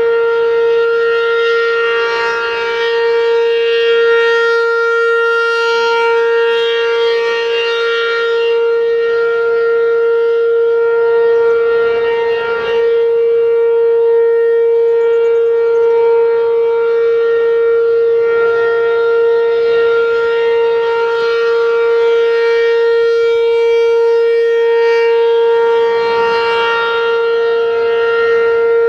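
ACA P-15 outdoor warning siren sounding a steady alert: one loud, held tone with no rise or fall in pitch, swelling and fading gently in loudness.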